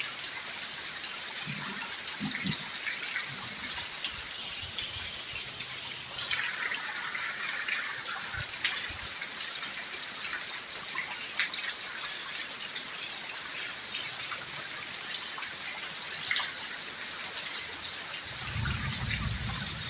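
Steady rain falling as an even hiss, with many separate drops ticking and dripping close by. A brief low rumble comes near the end.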